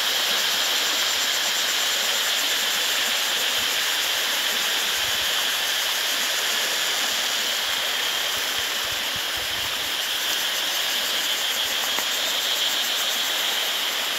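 Shallow rocky stream rushing over flat rock ledges and riffles, a steady, even rush of water running strongly.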